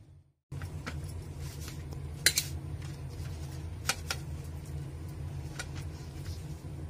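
Hand kneading dough in a steel plate, with a few sharp clinks as the plate and the wearer's bangles knock together, the loudest about two seconds in, over a steady low hum.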